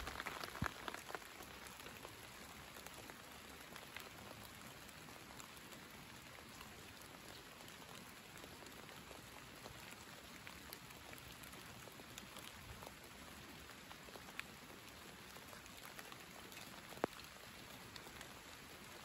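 Light summer rain falling: a soft, steady hiss with scattered single drops tapping, and one sharper drop near the end.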